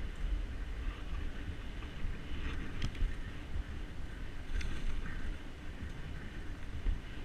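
Wind buffeting the handlebar camera's microphone together with the rumble of a bike's tyres on a dirt trail at speed, with two sharp knocks from the bike jolting over bumps about three and four and a half seconds in.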